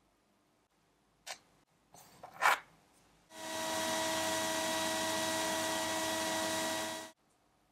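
Sandblasting gun in a blast cabinet: a couple of brief spurts, then a steady blast of air and abrasive for about four seconds that cuts off suddenly, stripping rust and paint from a small tin propeller.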